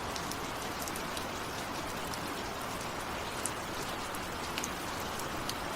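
Steady rain falling, with individual drops clicking sharply on a nearby surface scattered throughout.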